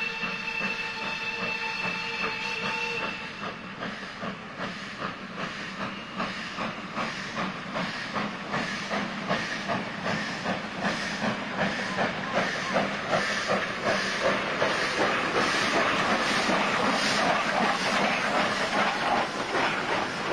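Steam locomotive pulling a train away: its whistle sounds a steady note that stops about three seconds in, then the exhaust beats steadily with hissing steam, growing louder as the engine draws near and passes.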